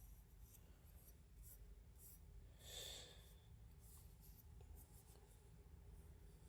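Near silence: faint room tone, with one soft, brief rub about three seconds in and a few faint ticks.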